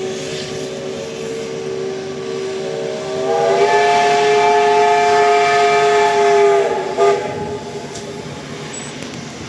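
P36 steam locomotive whistle sounding a long steady blast that swells into a louder, fuller chord about three seconds in. It cuts off about seven seconds in, just after a short final toot.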